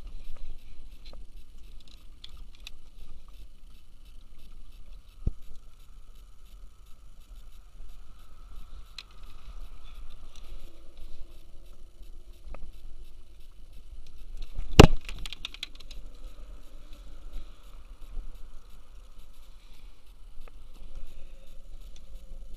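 Handling noises on a plastic fishing kayak as a small tautog is landed and unhooked with pliers: scattered light clicks and rustles over steady wind and water noise, with one sharp knock about two-thirds of the way through.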